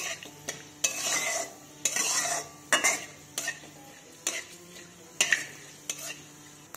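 A flat metal spatula scrapes and knocks against a metal kadai as whole spices and dried red chillies are stirred in hot mustard oil. The strokes are irregular, about one a second, over a light sizzle of the frying spices.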